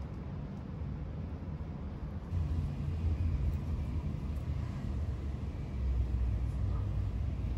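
Low, steady outdoor rumble that grows a little louder about two seconds in.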